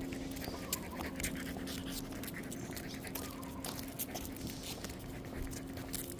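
Irregular clicking and scuffing of a dog walk: footsteps and a dog's claws on the ground, over a steady low hum.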